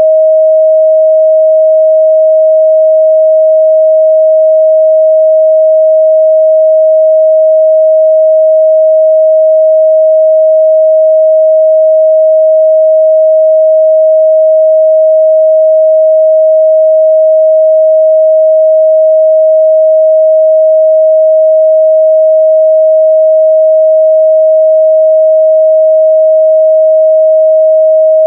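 A steady 631 Hz sine-wave test tone, one pure pitch held unbroken at a loud, constant level.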